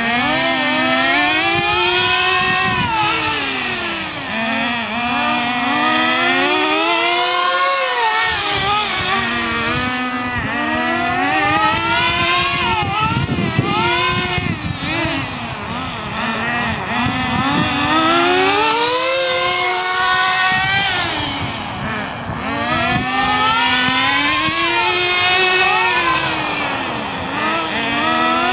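Nitro RC cars' small glow-fuel two-stroke engines whining at high revs, the pitch rising and falling over and over as the cars accelerate down the straights and slow for the turns, with two engines sometimes heard at once.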